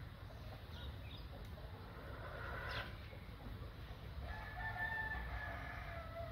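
A rooster crowing faintly: one long crow that begins about two-thirds of the way in, holds an even pitch and dips at the end, with a brief higher call a couple of seconds before it.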